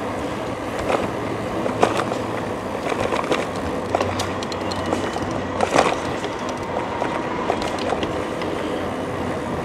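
Electric bicycle rolling along a paved cycle path: steady rolling noise with scattered clicks and rattles from bumps.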